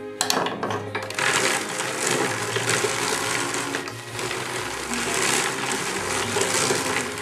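Drum carder running: its toothed drums turn and comb wool with a steady, rasping whir. A few clicks come just before it settles in.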